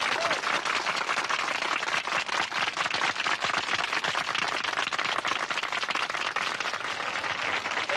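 A crowd applauding, many hands clapping at a steady level.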